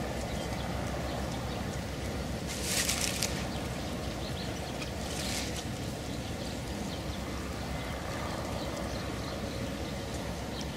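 Steady outdoor background noise with a low rumble, like wind on the microphone, broken by two short hissing rustles about three and five seconds in.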